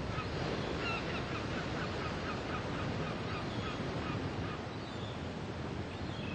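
A run of short honking calls, about three a second, stepping slowly down in pitch for some three seconds, over a steady rush of wind and sea noise.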